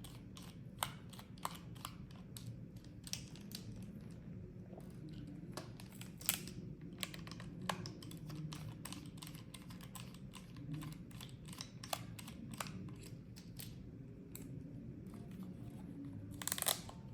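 Fairly quiet, irregular small clicks and ticks of a T5 Torx screwdriver turning screws out of a VR tracker's plastic housing, with light handling of the small parts; a louder, longer rustle comes just before the end.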